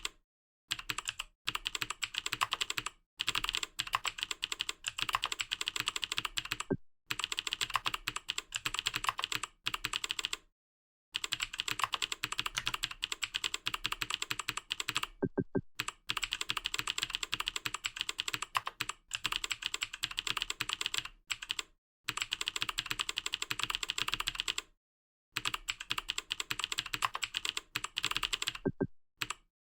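Fast typing on a computer keyboard: rapid keystrokes in runs of a few seconds, broken by brief pauses.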